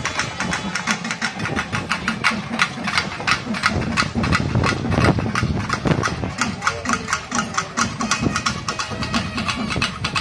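Group of frame drums beaten fast and steadily with sticks, many sharp strokes a second, over a dense low rumble.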